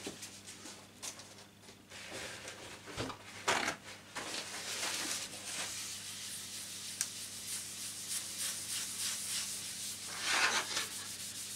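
Paper towel rubbed back and forth over a wooden board, working walnut oil into the freshly finished wood: a steady scratchy rubbing that starts about four seconds in, after a knock or two.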